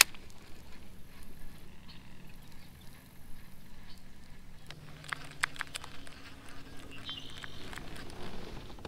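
Baitcasting reel being cranked to retrieve a lure, a faint low whir with a sharp click at the start and a cluster of small clicks about five seconds in.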